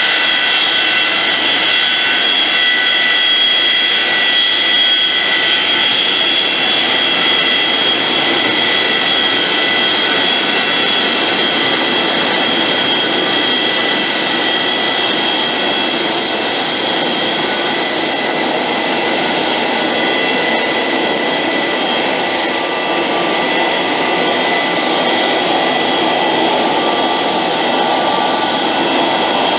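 Boeing 727-200F's Pratt & Whitney JT8D turbofan engines running at taxi power: a loud, steady jet whine with several high tones over a rushing roar, as the freighter taxis out for takeoff.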